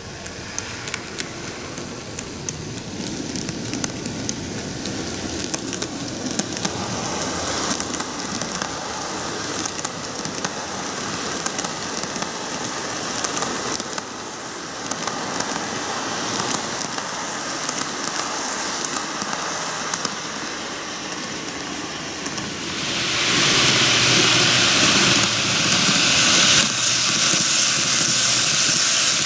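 N-gauge model train running on its track: wheels rattling with many small irregular clicks over the rail joints, with running noise underneath. It gets markedly louder about three-quarters of the way through as the cars pass close by.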